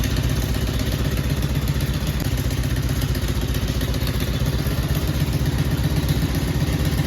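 Four-wheeler (ATV) engine running steadily at a low, even idle.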